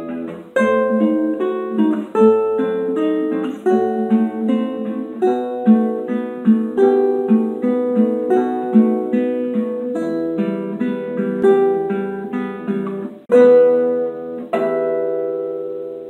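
Nylon-string classical guitar played solo: a steady stream of plucked notes over sustained bass notes, then a loud chord struck near the end and left to ring and fade.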